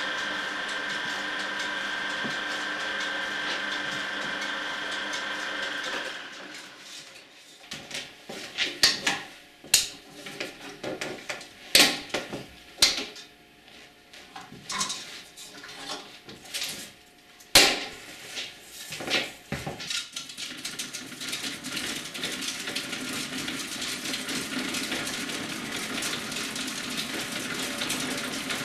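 Bauer B 8 B 35 mm cinema projector running with a steady mechanical whir, which stops about six seconds in. A run of sharp metallic clicks and clanks follows as the projector is handled. From about twenty seconds a steady whirring sets in as film is wound on a rewind bench.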